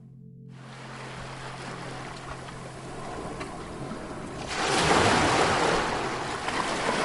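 Sea waves on a beach: surf washing steadily, building to a wave breaking loudly about four and a half seconds in. A faint, steady low hum lies under the first half.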